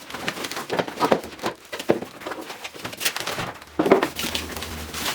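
Cardboard box and packing material being handled and pulled open: irregular rustling, scraping and light knocks.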